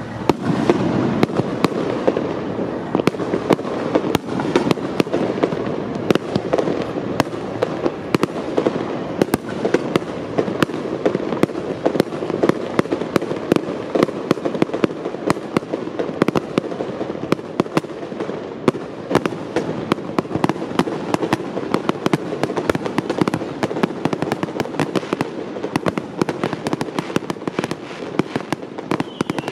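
Aerial fireworks shells bursting almost without pause: many sharp bangs and crackles over a steady rumble of booms.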